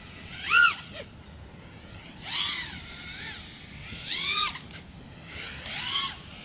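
FPV quadcopter's FPVCycle Imperial 25mm brushless motors and props whining in four throttle punches, each a rise and fall in pitch, as the quad flips and catches itself low over the ground.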